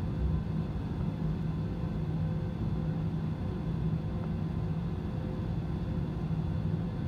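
Cabin noise inside an easyJet Airbus A320-family jet taxiing at low engine power: a steady, even hum with a low drone.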